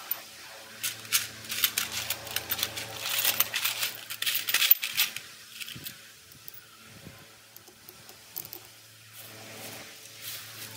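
Small steel parts (washers, brackets and bolts) clinking and rattling in a metal tin as a hand rummages through them, a dense clatter for the first few seconds, then scattered light clicks and the rustle of a plastic bag of bolts.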